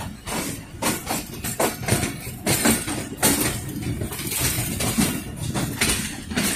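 Moving passenger train heard from aboard a coach: steel wheels clattering and knocking at an uneven pace over rail joints and points, with metallic rattling over a steady low rumble.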